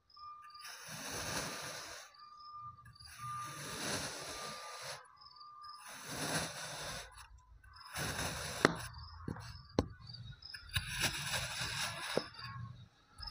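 Knife slicing through a block of kinetic sand: a series of soft gritty strokes, each a second or two long with short pauses between, picked up by a microphone clipped to the knife. A few sharp clicks come in the later strokes.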